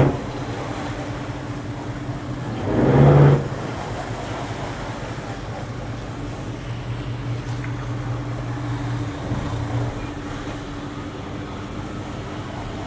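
Sunseeker 88 motor yacht's engines running at slow manoeuvring speed with a steady low hum, with one short loud surge of power about three seconds in and a smaller one later, as the yacht is eased alongside a pontoon.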